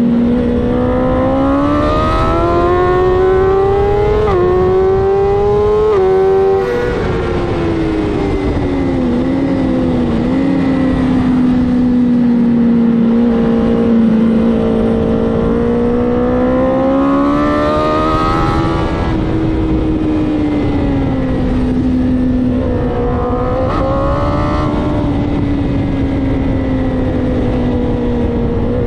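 BMW S1000RR inline-four sport-bike engine on the track, rising under throttle and stepping down in pitch at two quick upshifts a few seconds in, then dropping off the throttle with brief blips around the downshifts, and pulling up again twice more. A steady rush of wind runs beneath it.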